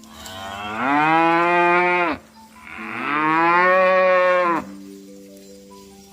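A cow mooing twice: two long, drawn-out moos, each rising in pitch at the start and then held, with a short pause between them.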